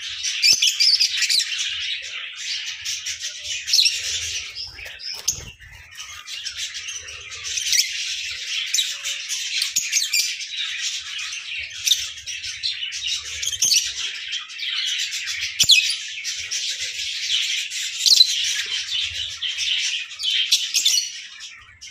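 A flock of lovebirds chattering with many overlapping high chirping calls, with a short lull about five seconds in.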